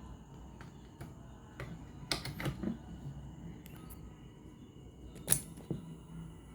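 Several sharp, separate clicks and clacks from handling the Sony CFS-710S radio cassette recorder, over a faint steady hum.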